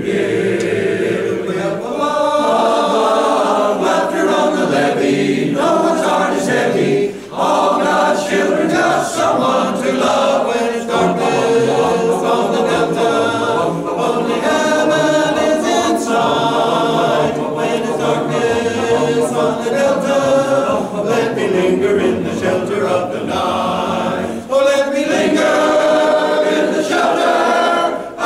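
A barbershop chorus singing a cappella in close four-part harmony, with two brief breaks in the sound, about 7 and 24 seconds in.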